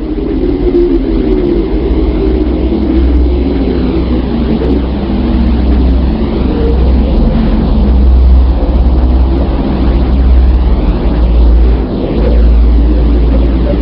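Deep, steady rumbling drone with a wavering hiss above it: a sonified space recording in which a planet's electromagnetic emissions are turned into sound.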